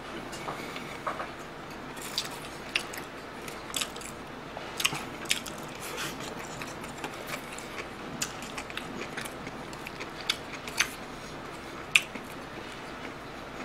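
A person eating close to the microphone: chewing food, with frequent short, sharp mouth clicks and smacks at an uneven pace. The loudest click comes near the end.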